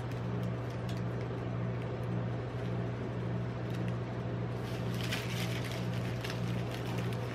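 Steady low hum of a rolled-ice-cream machine's refrigerated cold plate, with crinkling of Caramello chocolate-bar wrappers, busiest from about four and a half to six and a half seconds in.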